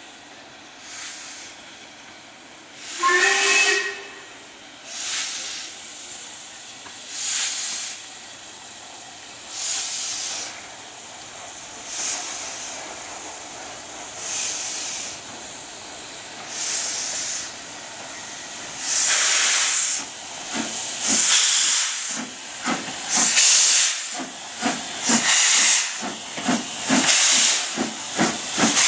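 LMS Princess Royal class 4-6-2 steam locomotive No. 6201 Princess Elizabeth working under steam. Hissing exhaust beats come about every two seconds, then grow louder and quicker, about two a second, as the engine draws close. A short whistle blast sounds about three seconds in.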